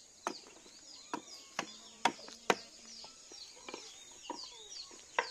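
Sharp, irregular knocks of a hammer striking a wooden tool handle, about eight blows, the loudest two about two seconds in. Small birds chirp throughout.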